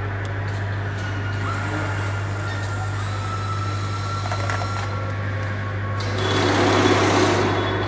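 Steady machinery hum of a factory assembly line, with a louder rushing noise for about a second and a half near the end.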